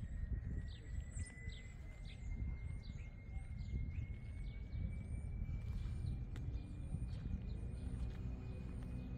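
Outdoor ambience with wind rumble on the phone's microphone and a bird chirping over and over in short, high, downward-sweeping notes, about two a second. A faint thin whistle rises slowly in pitch throughout, and a low steady hum comes in near the end.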